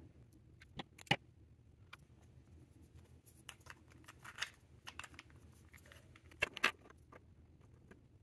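3D-printed plastic cube pieces being handled and fitted together: scattered small clicks, taps and scrapes, with the sharpest clicks about a second in and a pair near six and a half seconds.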